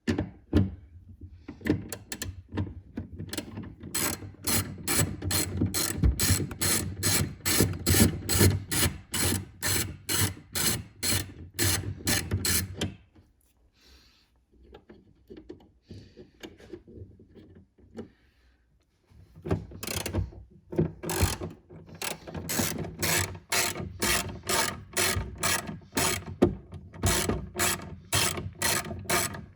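Hand ratchet with a 10 mm socket clicking steadily, about three clicks a second, as it loosens taillight mounting nuts. The clicking breaks off for several seconds in the middle, then resumes.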